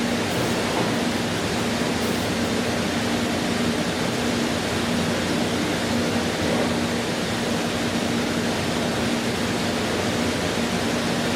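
Steady rushing machine noise with a constant low hum, unchanging throughout.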